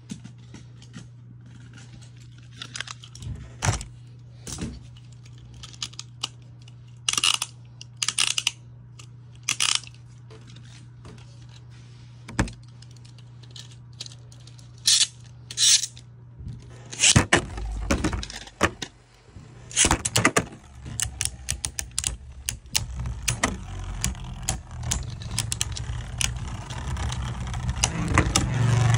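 Scattered plastic clicks and knocks of Beyblade tops being handled. About 17 seconds in, two Beyblade Burst tops are launched into a plastic stadium and spin and clash, with rapid clicking that grows louder near the end, over a steady low hum.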